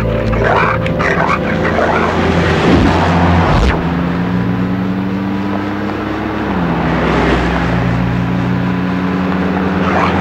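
SUV engines running hard as the vehicles drive fast over dirt, the engine note holding steady and stepping down in pitch a little past halfway. One vehicle sweeps past about three and a half seconds in.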